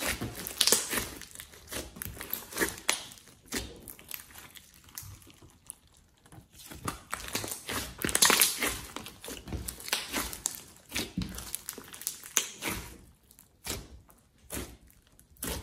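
Hands pressing and kneading a large mass of glossy slime mixed with floam beads and clay, making irregular sticky squishes, clicks and crackles of varying loudness.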